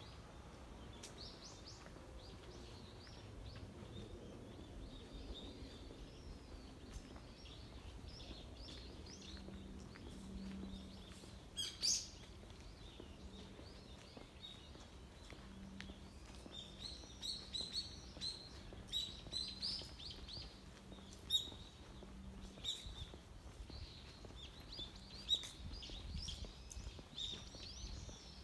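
Small birds chirping and calling in repeated short notes over faint outdoor background noise, busier in the second half, with one sharper, louder call about twelve seconds in.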